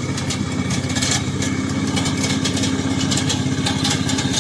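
Gasoline engine of a remote-controlled crawler slope mower running at a steady speed, with a fast, even firing pulse.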